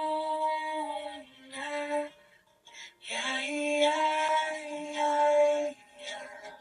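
A sung mantra over music: a voice holding long, steady notes, one phrase that ends about two seconds in, then after a pause of about a second a second long phrase that rises into a held note.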